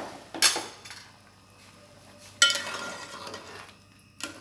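A slotted spoon knocking and scraping against the side of an aluminium pot while stirring rice in its cooking water. There are a few sharp clanks: a loud one about half a second in, and a louder, ringing one about two and a half seconds in.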